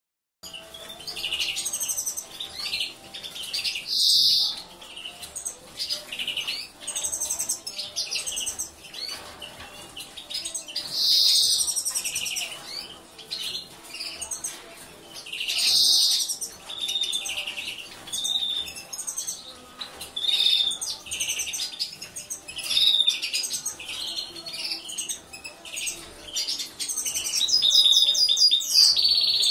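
European goldfinch chirping and twittering in short repeated calls, with louder bursts every few seconds and a quick run of notes near the end.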